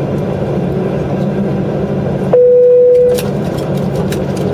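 Steady hum of an airliner cabin parked at the gate, its ventilation running. A little over two seconds in, a single loud steady tone sounds for just under a second and cuts off.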